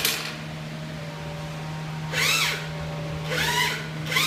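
Cement 3D printer running, with a steady low hum. There is a click at the start and three short whines that rise and fall in pitch, about two, three and a half and four seconds in.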